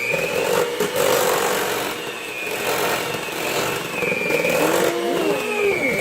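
Electric hand mixer running at a high speed through thick cookie dough, a steady motor whine that wavers slightly in pitch as the beaters load up.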